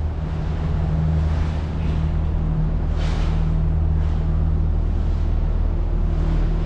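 Steady low mechanical hum and rumble with a hiss of noise over it; the hiss swells briefly about three seconds in.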